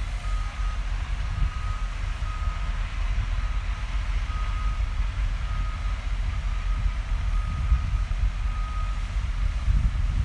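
Construction vehicle's reversing alarm beeping at a single pitch, roughly once or twice a second, over a heavy engine's low, steady rumble. The beeping stops shortly before the end.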